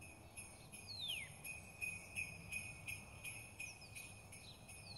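Soft jingling of sleigh bells shaken in a steady rhythm, about three shakes a second, with a few short falling twinkles.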